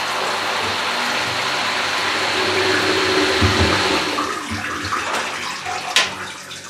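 Small 2800 rpm Miele spin dryer spinning a load, its drum whirring and water gushing out of the drain. The spin winds down after about four seconds, and a sharp click comes near the end as the lid's lock handle is opened.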